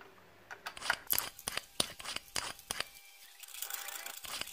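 Screwdriver turning screws in an amplifier's heatsink and metal chassis: a quick run of irregular sharp clicks and scrapes, starting about half a second in.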